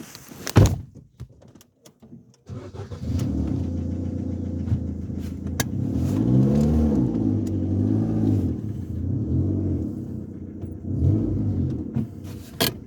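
A car engine starts about two and a half seconds in and runs, revved up and down several times. A sharp knock comes shortly before it and another near the end.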